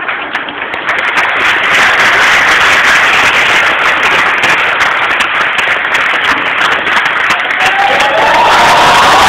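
Large audience applauding, swelling over the first second or two and then holding loud. About eight seconds in, a held pitched sound rises above the clapping.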